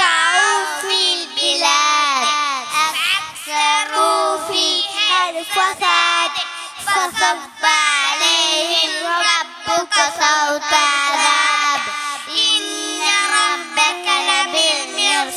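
Three young boys singing together into handheld microphones over a PA, a melodic line with bending, ornamented notes held and broken into short phrases.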